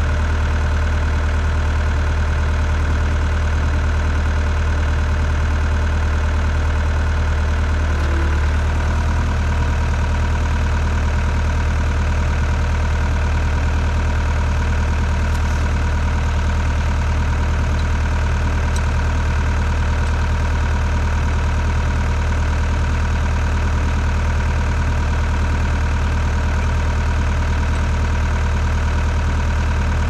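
An engine idling steadily: a constant low hum with an even stack of tones that holds the same pitch and level throughout.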